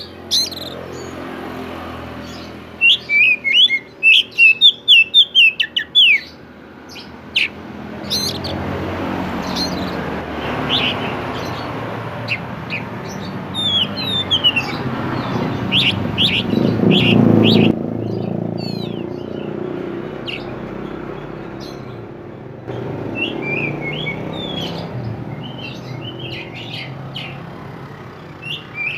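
Oriental magpie-robin singing: quick, high chirping and whistled notes, with a fast run of notes a few seconds in and scattered phrases after. From about eight seconds in, a louder low rushing noise builds under the song, loudest around seventeen seconds, then eases but stays.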